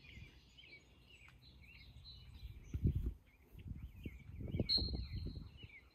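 Birds chirping and singing, with low gusting rumbles of wind on the microphone and a held high note for the last second or so.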